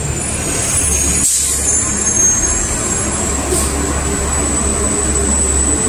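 Loud city street noise: a steady low engine hum of traffic, with a thin, steady high-pitched whine running over it.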